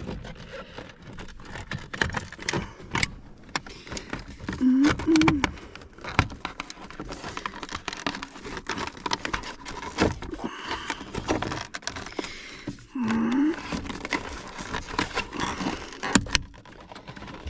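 Tools, keys and small metal and plastic parts clicking and rattling against each other as an Audi's ignition lock module is worked loose from the steering column, with two brief wavering tones about five and thirteen seconds in.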